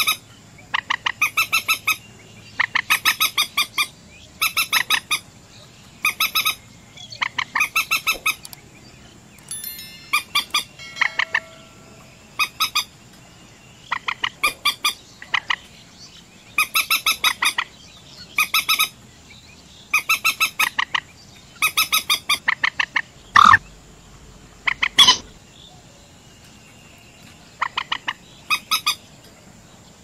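Common moorhen calling: repeated short bursts of rapid, stuttering notes, one burst every second or two, with two louder, sharp single notes a little past the middle.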